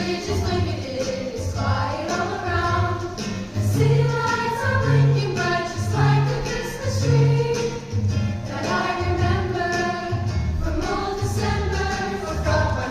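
A vocal ensemble singing a song in harmony, with low bass notes pulsing steadily beneath the voices.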